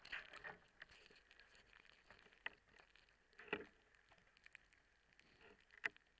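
Faint hydrophone recording of scattered underwater clicks and soft knocks as a chicken wrap and its packaging are pulled apart in a water tank; the loudest about three and a half seconds in and again near the end.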